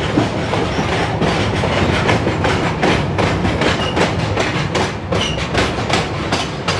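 Wheels of a moving passenger train clattering over rail joints close beside a line of open freight wagons on the next track: a dense, uneven clickety-clack over a steady running rumble.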